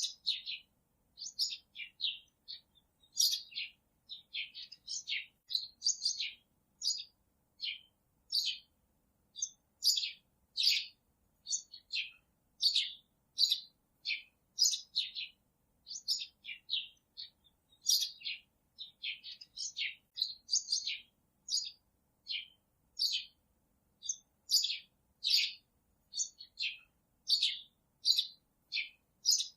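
Small birds chirping: a continuous run of short, high chirps, two or three a second.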